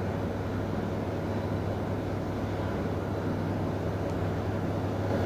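Steady low rumbling hum with a noisy wash over it, unchanging throughout.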